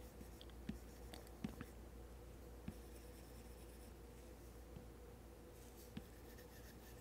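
Faint taps and strokes of an Apple Pencil tip on an iPad Pro's matte screen protector while painting, a handful of light ticks over a quiet, steady room hum.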